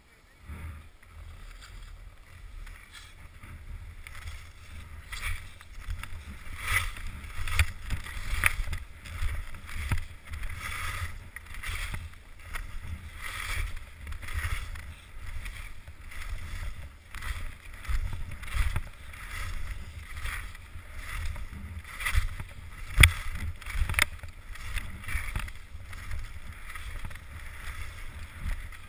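Skis scraping and carving over packed snow, swelling and fading about once a second with each turn, with wind rumbling on the camera's microphone and a couple of sharp clicks late on.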